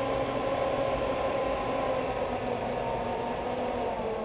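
Battery-box ventilation fan, a small DC fan on a variable-speed controller, running steadily: an even whir with a constant hum, dropping a little in level near the end.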